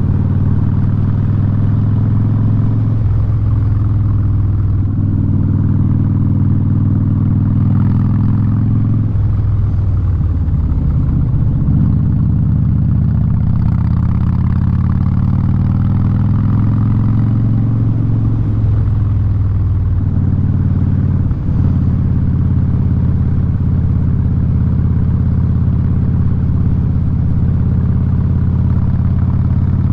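2017 Harley-Davidson Street Bob V-twin running loud through a Vance & Hines exhaust on the move. The engine note drops and climbs several times as the throttle and gears change.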